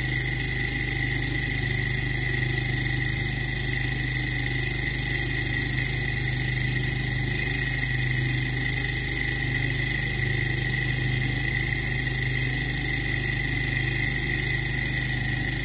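Small Stirling engine generator running with a steady, even hum and a high whine.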